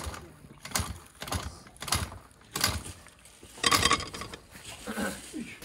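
A series of metal clanks and knocks, about five over three or four seconds, the loudest a little under four seconds in.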